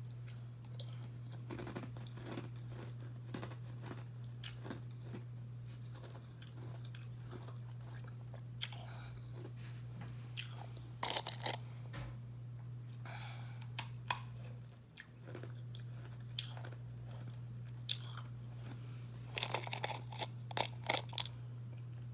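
Carbonated ice being bitten and chewed close to the mic: a run of crisp crunches, with louder clusters of bites about eleven seconds in and again near the end. A steady low hum sits underneath.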